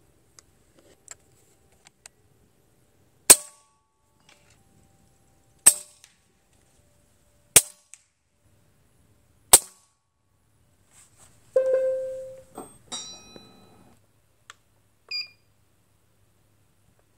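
Four sharp cracks about two seconds apart as a Daystate Pulsar PCP air rifle is fired. A metallic ring follows, with a few clanks and a short ping near the end.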